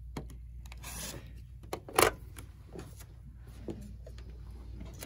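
Rotary cutter slicing through paper Thangles and fabric along an acrylic ruler on a cutting mat: a short hiss of the cut about a second in, a sharp clack about two seconds in, and small handling clicks.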